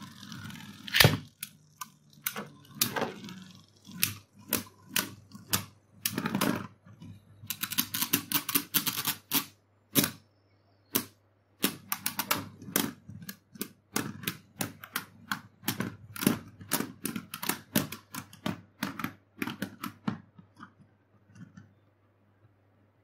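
A Beyblade ripped from a ripcord launcher into a plastic stadium, then spinning tops clashing and striking the stadium walls: an irregular run of sharp plastic-and-metal clicks and clacks, rapid in places, that stops about 20 seconds in.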